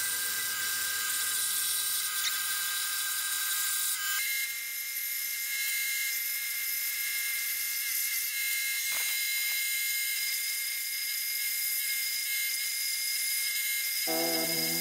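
Bench scroll saw running as its blade cuts a curved outline in a thin wooden sheet: a steady high whine.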